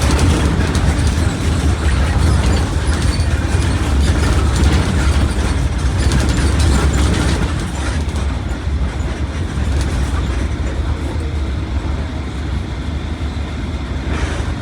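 Mercedes-Benz OF1721 BlueTec 5 bus on the move: a steady low diesel engine drone with rumbling road and body noise, easing off slightly after about eight seconds.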